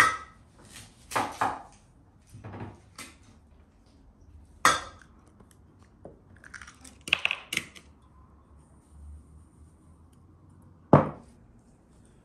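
Kitchen prep sounds: a handful of separate knocks and clinks of utensils and bowls on a wooden work table, with a few short scrapes, the loudest a single sharp knock near the end.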